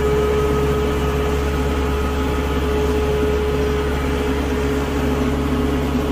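Kubota compact tractor's diesel engine running steadily while driving, with a steady high whine over the engine note.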